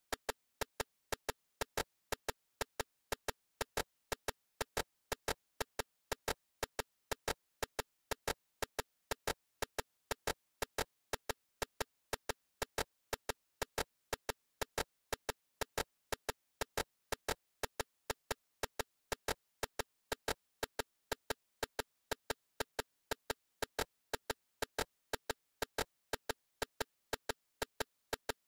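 Steady train of short, sharp digital clicks, about three a second, with silence between them: the glitching of a corrupted audio stream.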